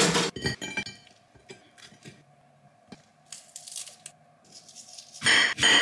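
Plastic bag of salad leaves crinkling and rustling as it is torn open and handled. It is loud in the first second and again near the end, with faint rustles between.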